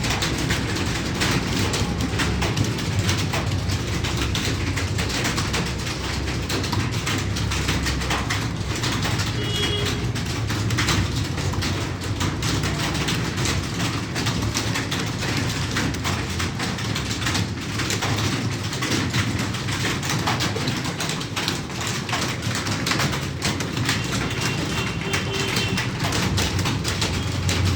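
Many computer keyboards being typed on at once, a dense, unbroken clatter of keystrokes from several typists working through a timed typing test.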